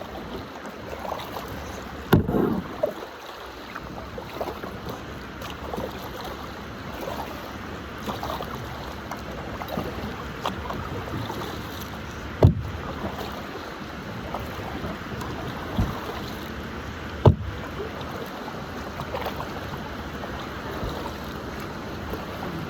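Kayak being paddled: water splashing and dripping with the strokes, with a few sharp knocks and some wind on the microphone.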